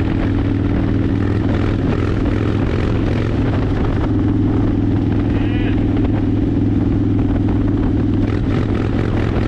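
A 2009 Harley-Davidson Fat Bob's Twin Cam 96 V-twin running at a steady cruise, with wind rushing over the microphone.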